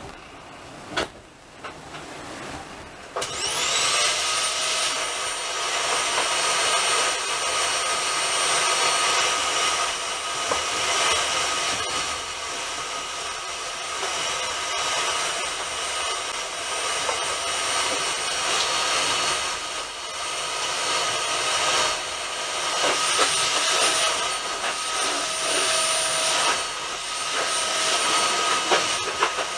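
Steady rushing noise with a high whine, heard from on board a moving train, coming on suddenly about three seconds in.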